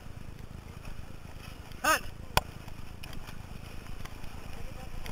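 Steady rush of wind and water around a four-person racing canoe being paddled hard. A short shout comes about two seconds in, and single sharp knocks follow shortly after and again near the end.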